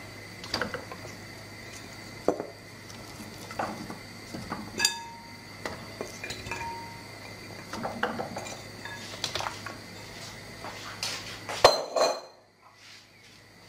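Chunks of cow's trotters being set one by one into a metal pressure-cooker pot over chickpeas, knocking and clinking against the pot in irregular strokes, some with a short ring. The loudest knock comes near the end.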